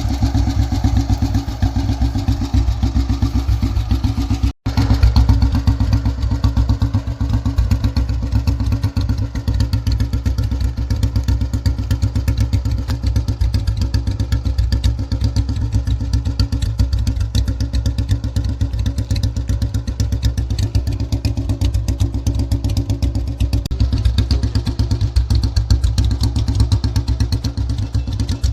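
Royal Enfield Bullet 350 single-cylinder four-stroke engine running steadily with its rapid, even thump of firing pulses. The sound breaks off for a split second about four and a half seconds in.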